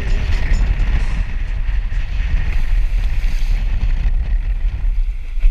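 Heavy wind buffeting on a board-mounted camera's microphone, with water rushing and splashing against a wingfoil board skimming over choppy water.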